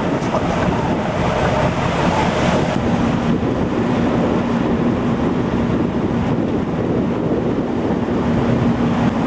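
Boat engine running steadily under wind buffeting the microphone and the wash of choppy sea; a steady low engine hum stands out from about three seconds in.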